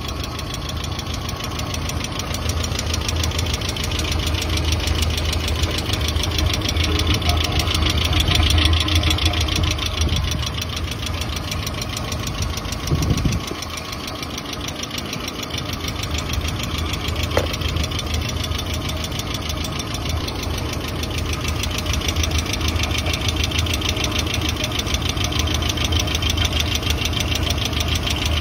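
Kia DOHC engine idling steadily with its oil filler cap off, a rapid, even ticking from the valvetrain carried over the low hum; the engine is sludged inside. A brief thump about halfway through.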